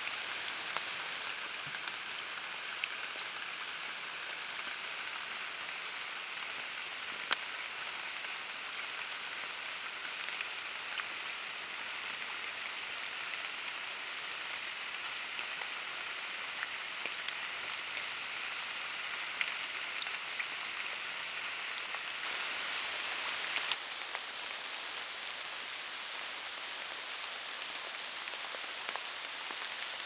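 Steady rain: a dense hiss of falling drops with scattered louder single drops ticking close by, one sharp drop about seven seconds in. The rain swells briefly a little over twenty seconds in.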